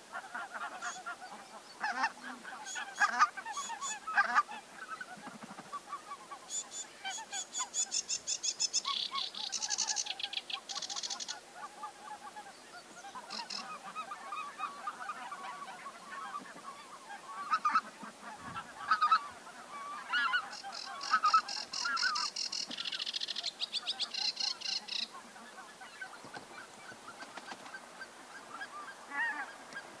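A flock of wild geese, greater white-fronted geese among them, calling in irregular overlapping bursts of honks. Twice, for a few seconds each, a high, rapid trill from a smaller bird sounds over the flock.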